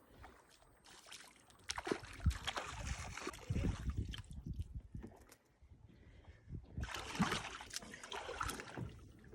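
Water sloshing and splashing in two irregular spells, mixed with short knocks.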